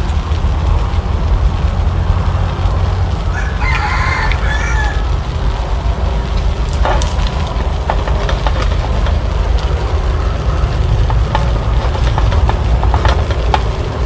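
A rooster crows once, about three and a half seconds in, over a steady low rumble. A few light clicks follow later.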